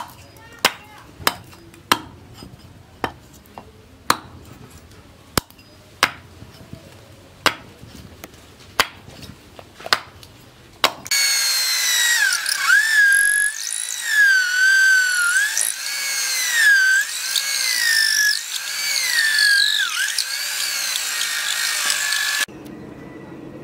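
Small hatchet chopping and splitting a wooden handle blank against a log, with sharp strikes about once a second. About eleven seconds in, a corded electric drill starts boring into the end of the wooden handle. Its motor whines and its pitch dips and recovers as the bit loads in the wood, until it stops abruptly near the end.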